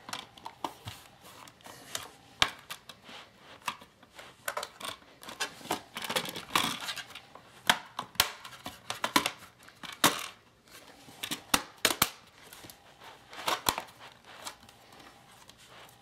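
Plastic bottom access cover of an HP Envy laptop being fitted back on and pressed into place: irregular clicks, taps and scrapes of plastic on plastic as the cover's clips snap in.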